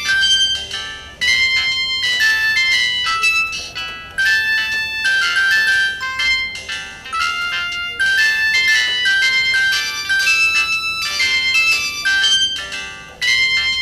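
Samsung SGH-T509 mobile phone playing a polyphonic ringtone: a bright synthesized melody of quick high notes, repeating in phrases a few seconds long.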